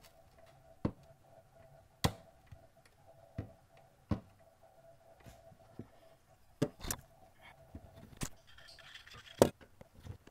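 Irregular sharp clicks and taps of a screwdriver and small tools against the plastic case of a TiVo Edge DVR while its bottom screws are being undone, over a faint steady hum that fades out near the end.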